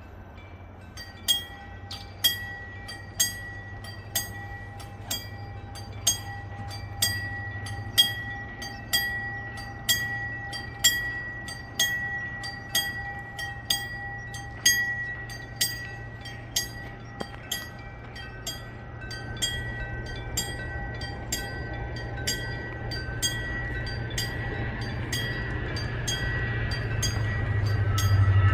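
A railroad level-crossing warning bell strikes about once a second, each strike ringing briefly. Under it a low rumble grows louder toward the end as a Saemaeul-ho passenger train approaches the crossing.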